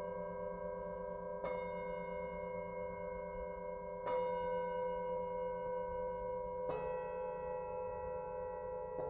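Singing bowls being struck about every two and a half seconds, three times and again at the very end, each strike's long ringing tones sustaining and layering over the last. The strike about four seconds in is the loudest.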